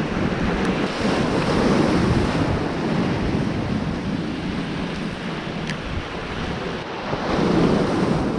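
Sea surf washing over shoreline rocks, swelling twice, with wind buffeting the microphone.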